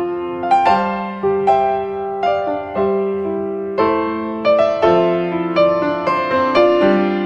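Background piano music: a calm melody of single struck notes and chords, each fading after it is played, about two a second.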